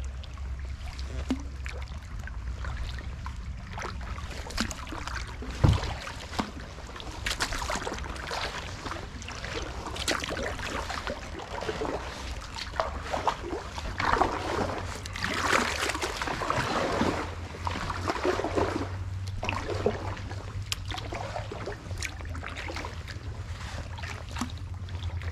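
Canoe paddle strokes in flood water: irregular splashes and drips from the blade, over a steady low rumble. A single sharp knock about six seconds in.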